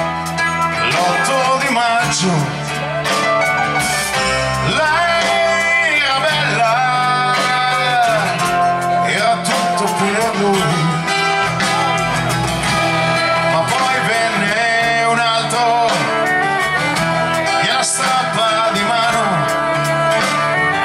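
Live band playing with violin, electric bass, electric guitar and drum kit, the melody lines bending and gliding over a steady rhythm section.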